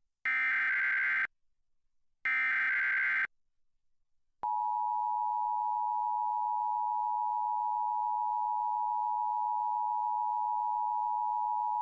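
Emergency Alert System test signal. First come two SAME header data bursts, each a buzzy digital warble about a second long, a second apart. About four and a half seconds in, the steady two-tone EAS attention signal starts and holds.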